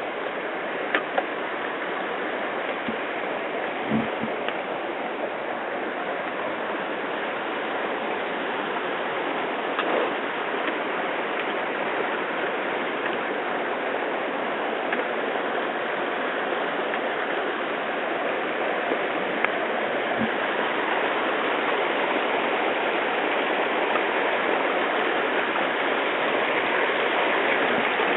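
A rocky mountain river rushing steadily over stones, growing slowly louder, with a few faint knocks.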